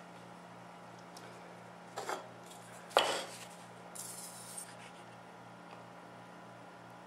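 Mitered wooden picture-frame pieces knocked against the workbench: two sharp clacks about a second apart, the second the loudest. Then comes a short high hiss as a glue bottle is squeezed onto a miter end.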